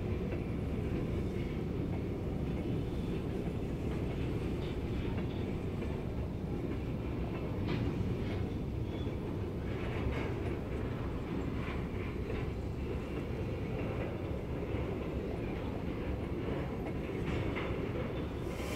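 Freight cars of a CSX train rolling past close by, covered hoppers and then tank cars. Their wheels make a steady low rumble on the rails, with occasional sharp clicks and clanks.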